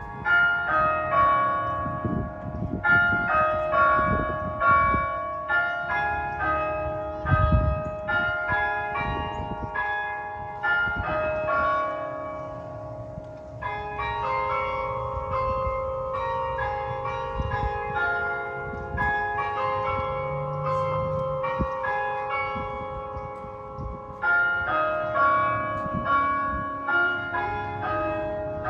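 Church bells ringing: several bells of different pitch struck rapidly and repeatedly, their tones overlapping. The strikes grow sparser and softer about halfway through, then pick up and get louder again near the end.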